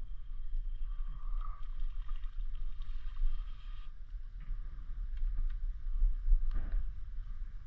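Wind rumbling on the microphone, with a few faint clicks and a short thump about six and a half seconds in.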